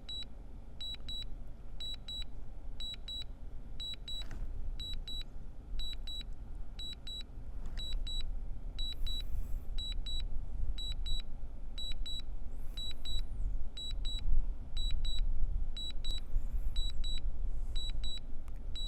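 DJI remote controller beeping during Return-to-Home: short high double beeps repeating about once a second, over low wind rumble on the microphone.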